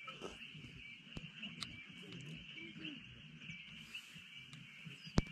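Evening chorus of calling animals: a steady high trilling with small repeated chirps, and lower wavering calls beneath it. A single sharp click sounds near the end.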